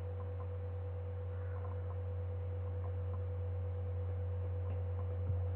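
Steady low electrical hum with a fainter, higher steady tone above it, in a pause of a home-recorded narration.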